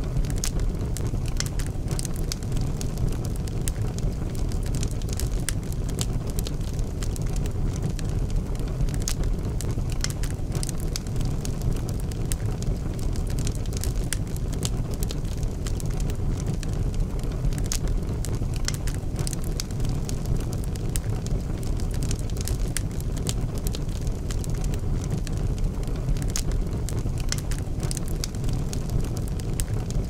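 Wood fire crackling in an open fireplace grate: frequent sharp crackles and pops over a steady low rumble.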